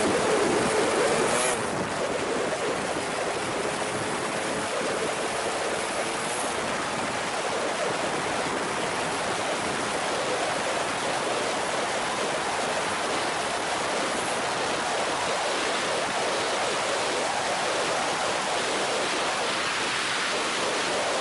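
Wind rushing over the handlebar camera's microphone on a Suzuki Raider 150 motorcycle under hard acceleration at high speed, a steady noise that buries the engine. The engine's pitched note is heard only in the first second or two.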